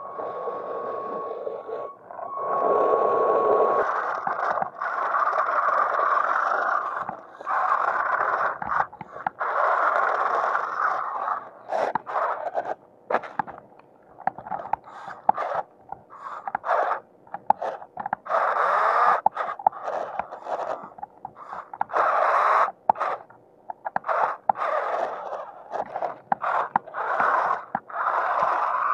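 Electric drive motors and gearbox of a 1/16-scale toy RC rock crawler whirring in bursts as the throttle is worked. There are runs of a second or more, many short stop-start blips, and a steady whine at the start.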